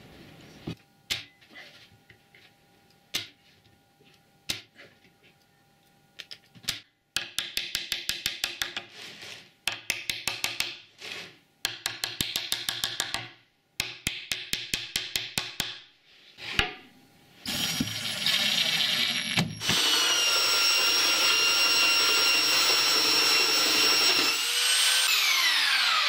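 Hammer knocks on a plywood cabinet, a few scattered taps and then quick runs of hammer blows driving pins into the plywood edges. Near the end a handheld power tool runs steadily with a high whine, then winds down in falling pitch as it is switched off.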